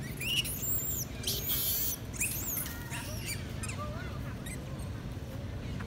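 Long-tailed macaques squealing and screeching: several high, sweeping squeals and a harsh screech in the first three seconds, then a few softer short calls, over a steady low background rumble.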